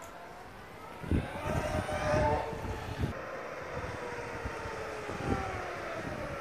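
Harley-Davidson LiveWire electric motorcycle whining: a thin motor whine that rises in pitch as it pulls away, then slowly falls as the bike comes back. Low thumps come in about a second in and fade by about three seconds.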